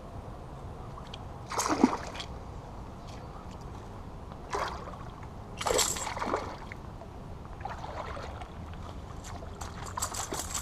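A small hooked bass splashing at the water's surface as it is reeled in to the bank: about five short splashes, the loudest about 2 s and 6 s in, with a cluster near the end as it is landed.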